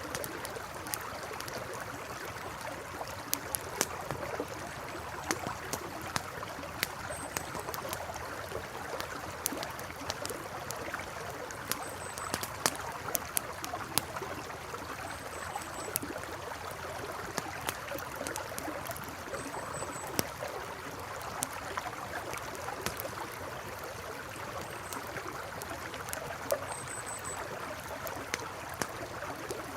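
Campfire crackling with scattered sharp pops over the steady rush of a flowing river. A faint high chirp recurs every few seconds.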